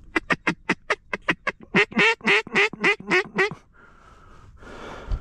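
A mallard duck call blown in a run of about fourteen quacks: short and quick at first, then longer and louder in the middle before it stops. A rustle and a low thump follow near the end.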